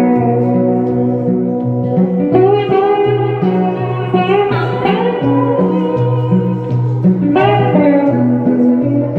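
Live rock band playing an instrumental break between verses: guitars holding and sliding between notes over a steady pulsing bass line.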